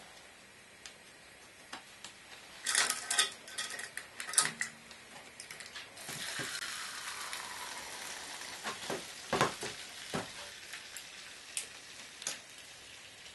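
Clattering knocks as the home-made aluminium camera is handled and tilted, then a steady hiss of the liquid developer sloshing and running inside it, slowly fading, with a few more knocks.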